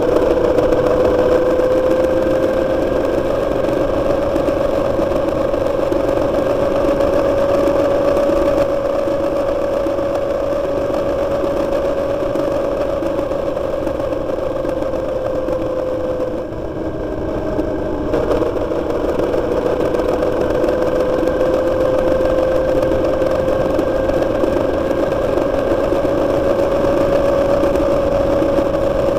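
Motorcycle engine running at a steady riding pace, its note rising and falling gently. About halfway through the note drops away for a second or so, as when the throttle is closed, then picks up again.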